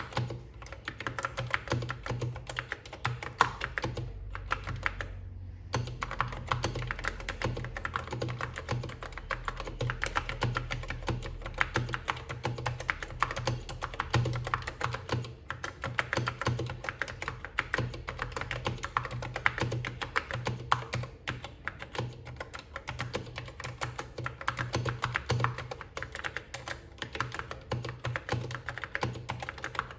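Key Tronic foam-and-foil keyboard being typed on in a fast, steady stream of key clicks, with a short pause about four seconds in.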